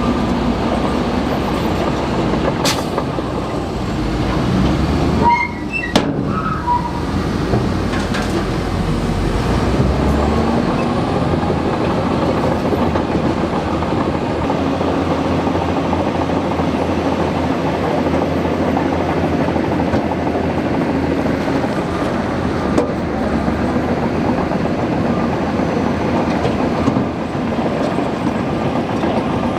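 Bulldozer working, its engine and tracks running steadily, with a sharp knock about six seconds in.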